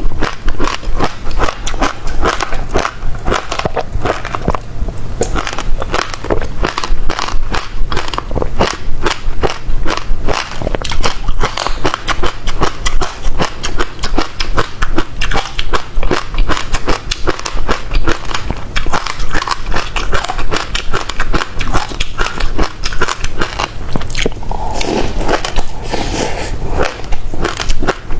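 Close-miked eating of passion fruit: wet chewing with dense, rapid crunching and crackling of the seeds. For a few seconds near the end the sound is lower and smoother.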